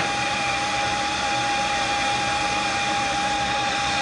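Steady hiss of steam from a standing narrow-gauge steam locomotive, with a constant whistling tone running through it.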